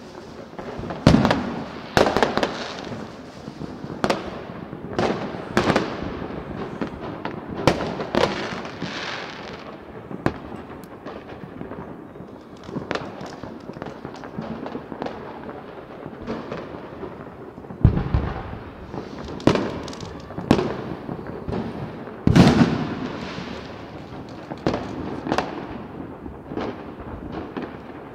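New Year's Eve fireworks and firecrackers going off all around: irregular sharp bangs every second or two, each with a short echo, over a steady background of distant crackling. The heaviest, deepest booms come about eighteen seconds in and again about four seconds later.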